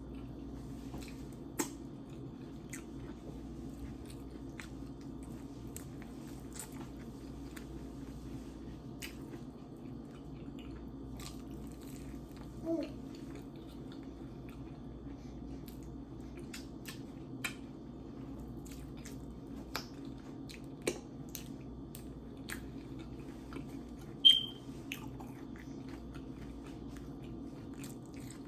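Close-miked mukbang eating sounds: chewing and biting with many small, sharp mouth clicks and crunches at irregular intervals, over a steady low hum. A short high squeak about 24 seconds in is the loudest sound.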